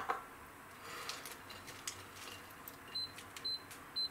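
A light knock at the start, then faint ticking of water heating in a steel pot. Near the end come three short, high electronic beeps about half a second apart.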